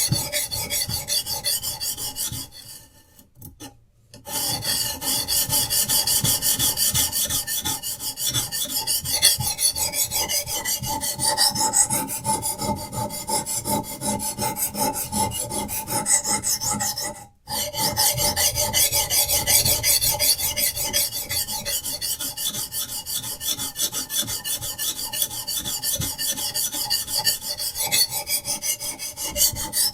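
Diamond sharpening stone on a Hapstone RS guided knife sharpener, scraping along a knife's edge in rapid back-and-forth strokes. The strokes stop for about a second roughly three seconds in, and break off again briefly just past halfway.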